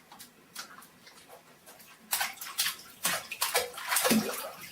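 Water splashing in a baby's bath: quiet for about two seconds, then several short splashes.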